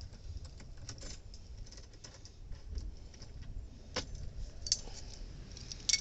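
Scattered light metallic clicks and clinks of hand tools and copper pipe being handled during flaring work, a few sharp ones about a second in and again near the end.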